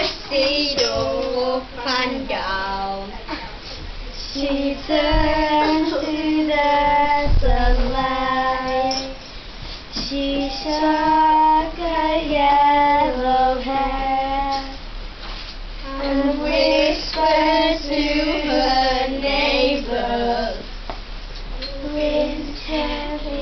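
A small group of children singing a song together, in phrases of held notes with short pauses between them.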